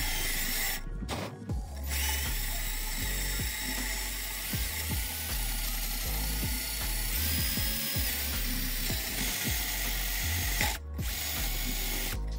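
Electric drill spinning a wire end brush against a rusty cast-iron motor end cover, scouring rust from its bearing seat and face with a steady scratching whir; the brush stops briefly twice about a second in and once near the end.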